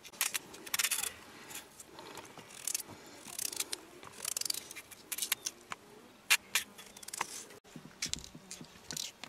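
Kitchen knives peeling and slicing raw potatoes by hand: irregular short crisp cuts and scrapes, several a second at times, as slices drop into a metal steamer pan.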